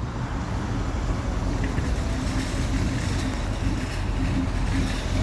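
Car engine running with a steady low rumble that grows gradually louder as the car approaches.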